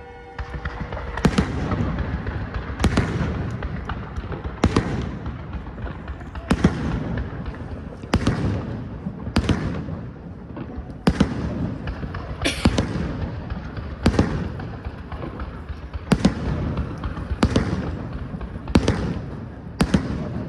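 Fireworks from a castillo de fuegos artificiales going off: a sharp bang about every one and a half seconds over continuous crackling.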